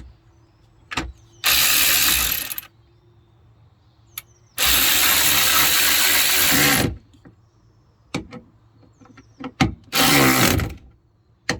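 A power driver running in three bursts, the second the longest, driving home the bolts of a new tailgate latch. The pitch falls away at the end of the later bursts as the motor slows. Small clicks and knocks come between the bursts.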